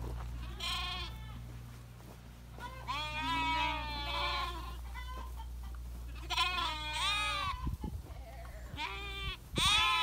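Sheep bleating, several wavering calls a few seconds apart. A steady low hum lies under them and stops about three-quarters of the way through.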